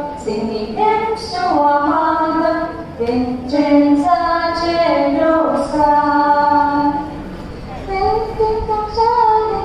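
Children's voices singing a slow hymn, with long held notes moving in steps and a short breath between phrases about seven seconds in.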